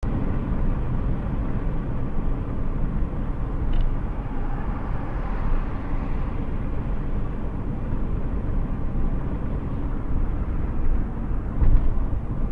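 Steady road and engine rumble of a car driving at highway speed, heard inside its cabin, with a brief louder bump near the end.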